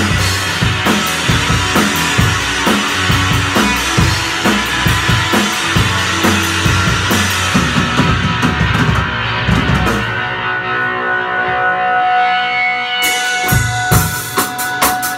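Rock band playing an instrumental passage on drum kit, electric guitar and electric bass. The drums drop out about ten seconds in, leaving held guitar and bass notes, then come back in with cymbal crashes near the end.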